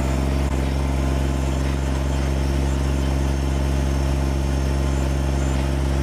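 Kubota BX25D compact tractor's three-cylinder diesel engine running steadily while the front loader tips out a bucket of gravel.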